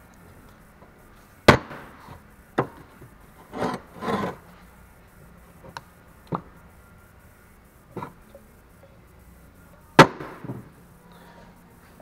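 Hand tools and brake parts being handled: a string of separate sharp clicks and knocks, the loudest two near the start and near the end, with two short scraping rustles in between.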